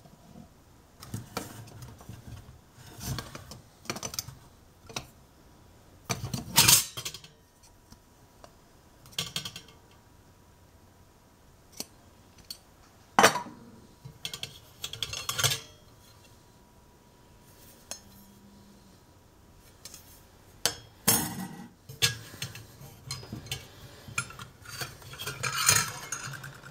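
Vintage stainless steel coffee percolator being taken apart by hand: its lid, spreader cover and basket come off, giving scattered metal clinks, knocks and scrapes. A few sharp clanks are louder than the rest, and there is a short rattle near the end.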